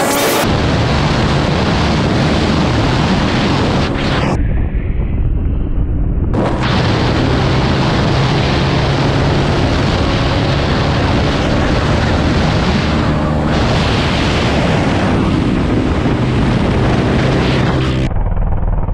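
Dirt bike engine running at road speed, with heavy wind buffeting on the camera microphone. The high hiss drops away twice, about four seconds in and near the end, leaving the engine's low drone.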